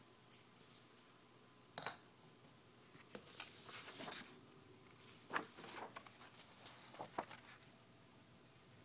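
Faint handling noises: a few scattered clicks and short rustling scrapes as the camera and objects are moved about over a fleece blanket.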